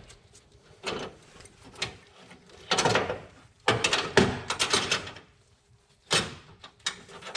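Metal hand tools clattering in a series of short clanks and rattles, several in quick groups, as wrenches are handled and sorted.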